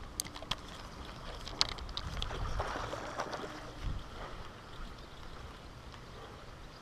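Spinning reel being cranked to reel in a hooked trout: a few sharp clicks in the first two seconds, then a faint steady rustle.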